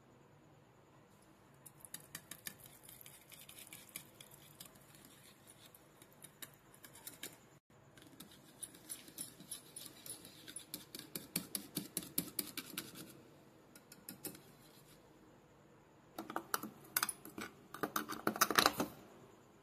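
Metal spoon beating and stirring yogurt in a plastic bowl: quick, rapid scraping and tapping strokes in two long runs. Near the end comes a louder run of scraping as a spoon works green chutney in a steel bowl.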